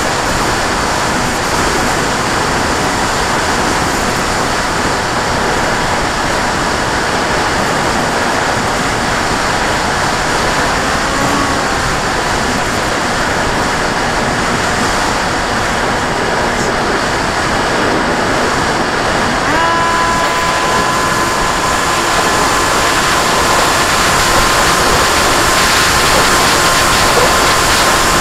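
Wind rushing over the onboard camera of a flying radio-controlled airplane, with the steady whine of its motor and propeller under it. About two-thirds of the way through, the whine steps up slightly in pitch, grows stronger and then holds steady.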